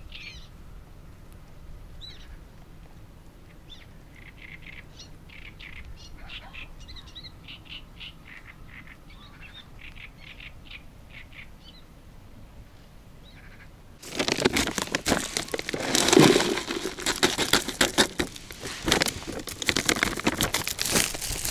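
Small birds chirping in short repeated calls. About fourteen seconds in, a sudden switch to loud crinkling and rustling of a plastic groundbait bag being cut open with a knife.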